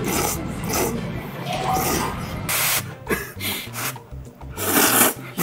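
Noisy slurping of noodles, several loud slurps in bursts, the biggest about halfway through and near the end, over background music.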